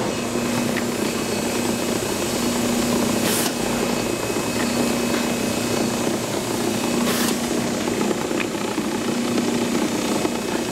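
Industrial sheet laminator running with printed sheets feeding through: a steady machine hum whose low tone cuts in and out about every two seconds, with a short hiss twice.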